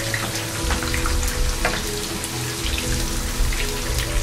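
Chopped almonds, cashews, dates, pistachios, chironji and raisins sizzling and crackling in hot ghee in a non-stick frying pan as a spatula stirs them, being roasted until golden.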